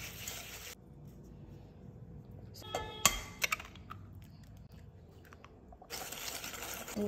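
Wire whisk clicking and scraping against a glass mixing bowl as a cookie-dough mixture is beaten, with one short ringing clink about three seconds in and brisker clicking near the end.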